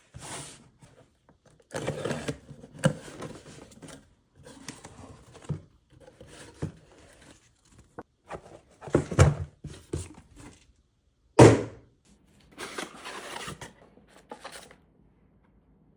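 Packaging being handled and opened by hand: irregular bursts of rustling and scraping with several light knocks, and one louder thump about eleven seconds in.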